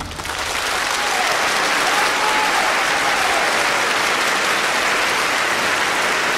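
Audience applause that builds over the first second and then holds steady.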